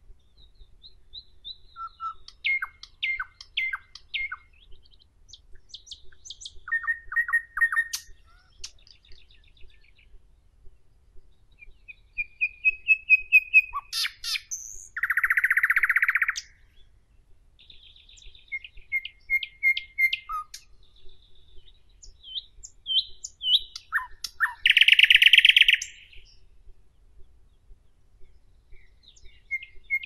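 Nightingale singing in separate phrases with short pauses between them: runs of quick repeated notes, a drawn-out whistle, and two loud, rapid rattling trills, one about halfway through and another some ten seconds later.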